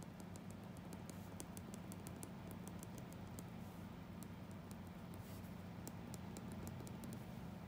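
Faint, irregular light ticks of a drawing pencil's tip dabbing on paper, several a second, over a steady low hum.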